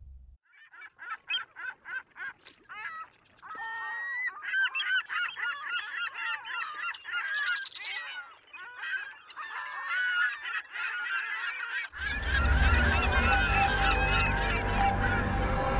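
Geese honking, a flock's many short, overlapping calls. After about twelve seconds a loud whoosh and music cut in over them.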